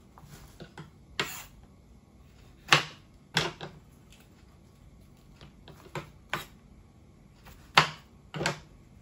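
Irregular sharp taps and knocks, about seven of them with the loudest about three seconds in and near the end, from hands and a knife working small bell peppers over a stainless steel colander as they are de-seeded and cut.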